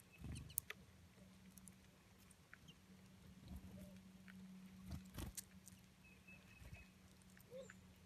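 Goldfinches feeding on seed at a snowy log: scattered soft clicks and taps, the loudest about five seconds in, with a few faint short bird chirps and a low steady hum.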